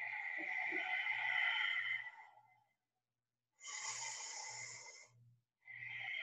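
Slow, deep audible breaths by a person standing in a stretch with arms overhead: a long breath of about two seconds, a pause, a shorter breath, then another long one beginning near the end, with the pauses between them cut to dead silence.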